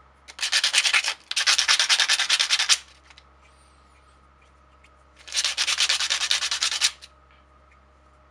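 Brass cartridge case rubbed back and forth on coarse 80-grit sandpaper in quick strokes, taking off the burr on its front left by drilling. There are two spells of rubbing, the first with a short break near its middle, and a pause of about two and a half seconds between them.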